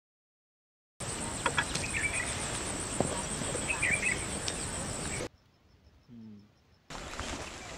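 Outdoor countryside ambience with a steady, high, pulsing insect trill and a few short bird chirps. It starts about a second in and drops out for about a second and a half past the middle before returning.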